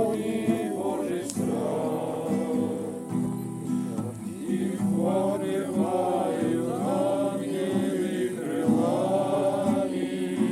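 A group of voices singing a Russian Christian hymn together, with guitar accompaniment.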